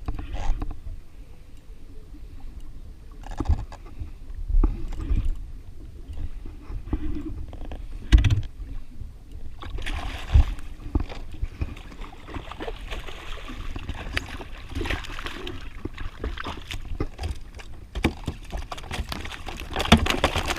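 Knocks and thumps of rods and gear being handled on a jet ski, over water lapping against the hull. From about halfway, a busier run of clicking and splashing.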